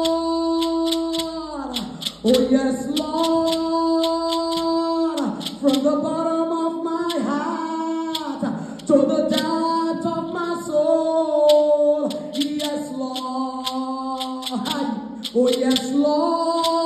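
A woman singing a gospel song solo into a microphone in long, held phrases, with short sharp percussive hits scattered along.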